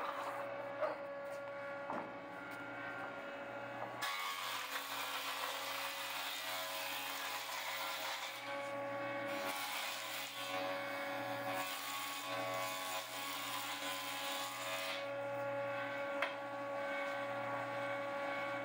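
Stationary jointer running with a steady motor hum. From about 4 seconds in until near the end, a pine board is fed across the cutterhead, adding the noise of the knives cutting the wood, to straighten the board's edge.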